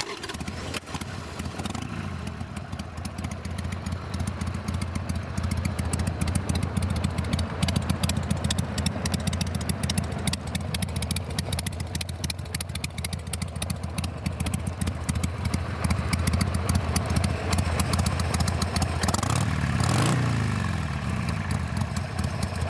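2003 Harley-Davidson Sportster 883 Hugger's 883cc carbureted V-twin idling through aftermarket slip-on mufflers. The throttle is blipped once near the end, the pitch rising and falling back.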